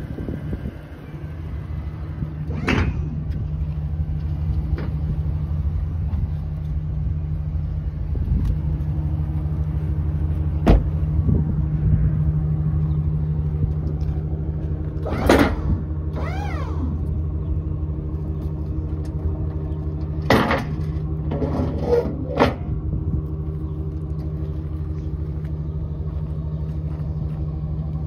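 Pickup truck engine idling steadily, broken by several sharp knocks and clunks and a short falling squeal about sixteen seconds in.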